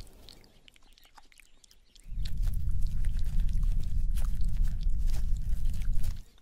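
Red kangaroo licking the inside of her pouch: soft wet clicks and smacks. A low rumble comes in about two seconds in and stops just before the end.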